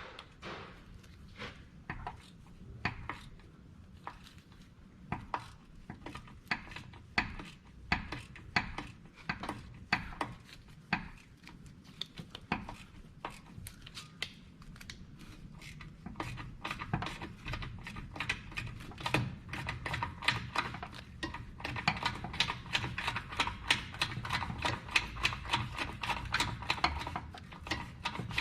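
Ratchet wrench clicking in short runs as the bolts of the front sway bar bushing clamps are loosened, the clicks coming faster and louder over the second half.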